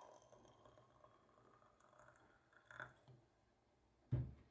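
Faint trickle of water poured in a thin stream into a small Chinese clay teapot, its pitch rising slightly as the pot fills, fading out before three seconds. About four seconds in there is a single dull thump, the loudest sound.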